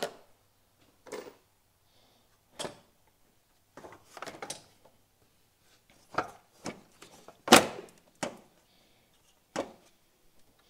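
Irregular sharp knocks and cracks of a damaged fiberglass radiator support being wrenched loose and pulled out of a car's front end, about nine in all, the loudest about seven and a half seconds in.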